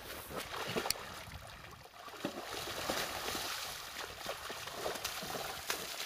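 A horse sloshing and splashing in shallow floodwater as it gets up from rolling in it and paws at the water with a front hoof, in irregular splashes.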